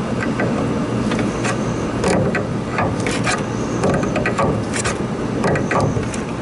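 Hand tools working on metal: an irregular string of sharp clicks and knocks over a steady background hum, as the small circulating pump of an old chiller is unbolted and taken apart.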